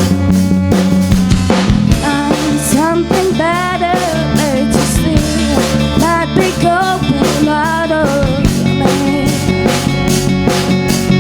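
Indie rock band playing a song: drum kit keeping a steady beat under bass and guitars. A melodic lead line with sliding pitch bends comes in about two seconds in and drops out near eight seconds.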